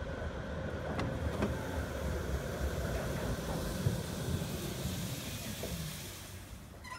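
Low-floor electric tram rolling in on street track and slowing to a stop: a steady low rumble of wheels on rail, with two sharp clicks about a second in and a falling whine as it brakes, the sound easing off near the end.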